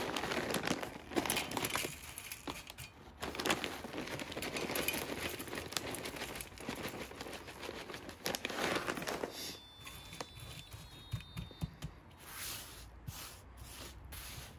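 Plastic bag of Weber wood smoking chips crinkling and rustling as it is handled and the chips are shaken out into a metal smoker box, for about nine seconds. Then it goes quieter, with a few light clicks near the end.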